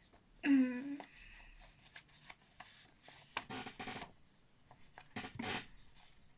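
Stiff paper rustling and crinkling in a few bursts as a homemade paper wallet, stapled together, is opened and handled. About half a second in there is a brief steady-pitched hum, the loudest sound.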